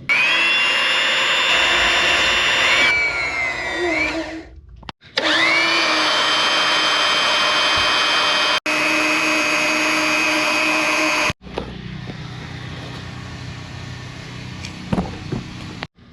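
An electric power tool's motor spins up to a high steady whine, winds down, then spins up again and runs steadily until it cuts off sharply. A quieter rough noise follows, with a couple of knocks near the end.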